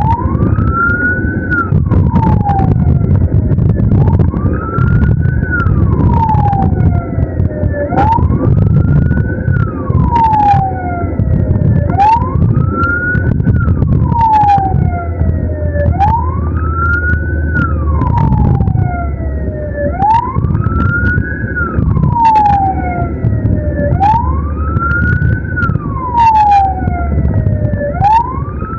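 Ambulance siren on a wail cycle, each sweep rising quickly and then falling slowly, repeating about every four seconds, over steady low vehicle and road rumble.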